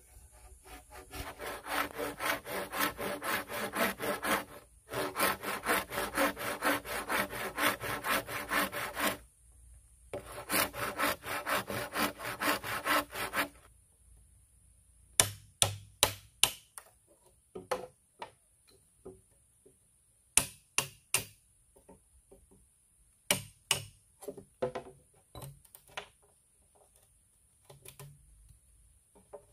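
Hand saw with a wooden handle cutting through a green bamboo culm: quick rhythmic rasping strokes in three runs with two short pauses. About halfway through, the sawing stops and is followed by scattered sharp knocks in twos and threes.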